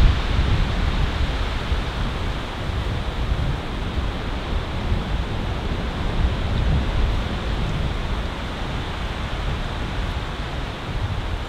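Steady wind noise with a gusting low rumble from wind buffeting the microphone.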